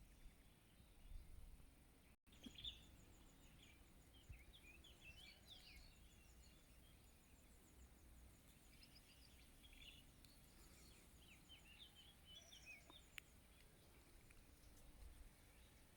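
Faint birdsong: several small birds chirping and trilling in quick high notes over a low, steady outdoor rumble, with a brief break in the sound about two seconds in.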